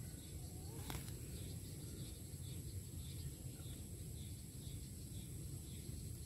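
Quiet rural field ambience: faint, rapidly repeating small chirps and a steady high hiss over a low, steady rumble, with a single click about a second in.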